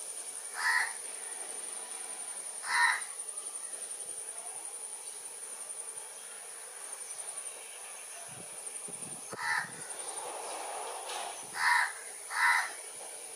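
Five short harsh bird calls, two near the start and three in the last few seconds, over a steady high-pitched insect trill.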